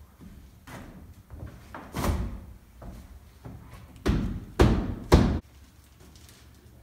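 Knocks and thuds from a new pre-hung entry door and its frame being worked into the rough opening: one about two seconds in, then three sharper, louder ones about half a second apart a little past the middle.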